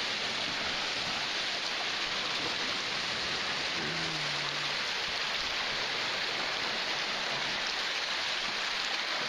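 Lake Superior waves surging and splashing over the shoreline rocks: a steady, unbroken rushing of water.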